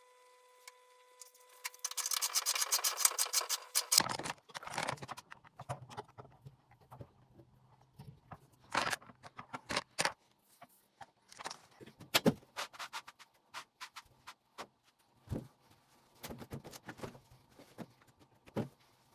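Clinking, knocking and scraping of handled metal. A fast run of clicks lasts about two seconds, then come scattered sharp knocks and scrapes.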